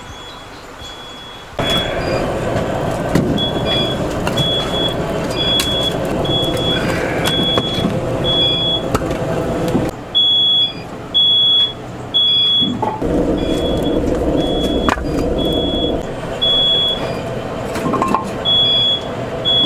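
A high electronic beeping repeats about twice a second, like a vehicle's warning or reversing beeper. Under it a vehicle's motor runs with a steady rumble that starts a second or two in, stops for a few seconds about halfway, then comes back.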